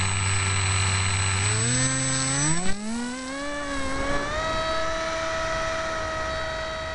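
Electric motor and propeller of a Harbor Freight Wild Hawk foam RC airplane, heard through its onboard camera: a buzzing whine that rises steeply in pitch about a second and a half in as the motor speeds up, then holds at a higher, steady pitch. A single sharp knock sounds a little before the three-second mark.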